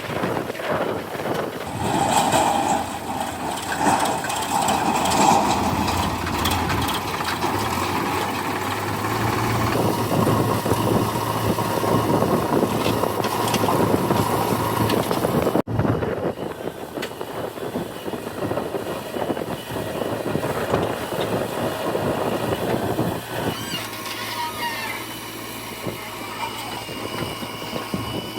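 JCB 3DX backhoe loader's diesel engine running steadily while it works, digging and loading soil. The sound breaks off for an instant a little past halfway, then carries on.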